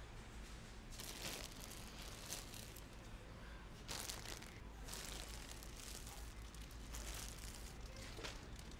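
Plastic-wrapped pillows crinkling and rustling in several short bursts as they are handled, over a faint steady low hum.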